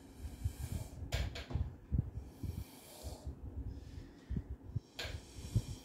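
A child blowing through a drinking straw: short breathy puffs, with a longer blow about two seconds in, over irregular low bumps.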